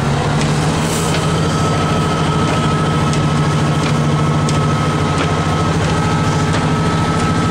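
Ford L9000 plow truck's diesel engine running steadily under load while plowing, heard inside the cab, with a thin steady high whine above it and a few faint rattles.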